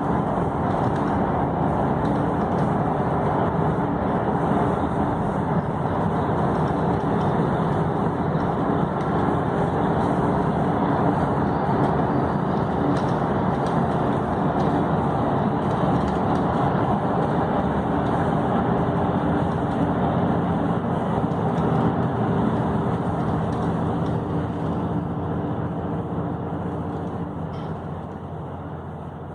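Steady road and engine noise of a vehicle driving at highway speed, heard from inside the vehicle, fading out over the last few seconds.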